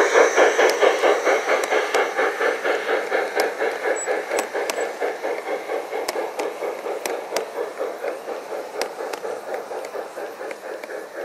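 G-scale garden railway model steam locomotive chuffing quickly and evenly as it hauls its coaches past, fading as the train draws away. Sharp clicks of the wheels over the rail joints come through now and then.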